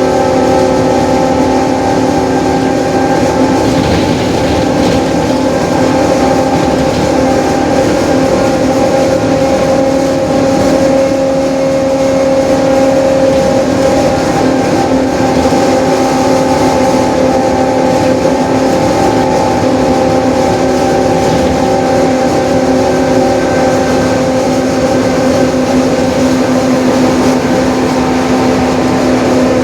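Mercedes-Benz OF-1721 Bluetec 5 bus under way at a steady pace, its differential droning with a steady whine over the engine and road noise.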